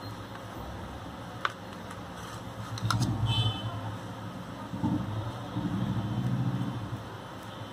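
A table knife spreading soft butter over a slice of bread, with rough scraping strokes. About three seconds in there is a light metallic click with a brief ring, as the knife touches the steel butter bowl.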